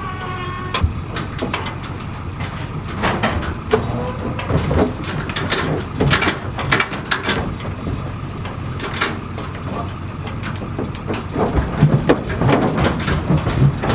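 A motor running steadily under repeated metallic clanks and rattles that come irregularly, heaviest in the middle and again near the end.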